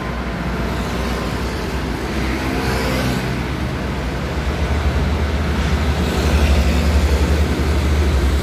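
Nissan Diesel 220PS turbo truck's diesel engine running as the truck pulls slowly closer, its low drone growing louder. The engine pitch rises briefly about three seconds in.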